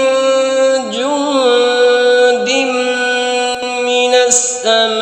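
A male qari reciting the Quran in a slow melodic chant, holding each vowel as a long steady note. His pitch glides to a new note about a second in, again about halfway, and near the end.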